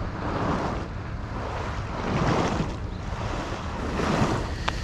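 Boat-wake waves washing against a concrete seawall, surging about every two seconds, with wind rumbling on the microphone.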